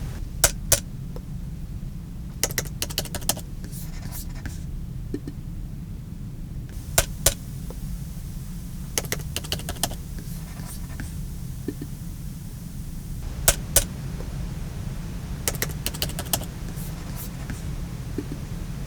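Laptop keyboard typing heard from a few feet away, in scattered short bursts of keystrokes. Under it runs a steady low rumble and hiss: the microphone and preamp noise floor, made easier to hear by EQ-matching.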